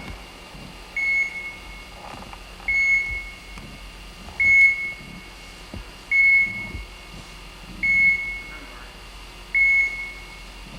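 Electronic beeper, likely a bird dog's beeper collar, sounding a short high-pitched beep about every 1.7 seconds, six times.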